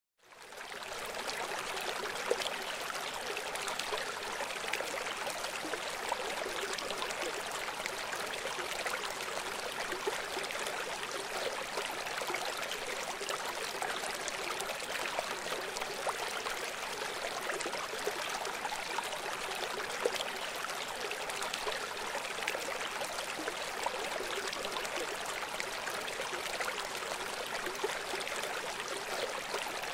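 River water flowing, a steady rushing babble with small splashes throughout; it fades in over the first second.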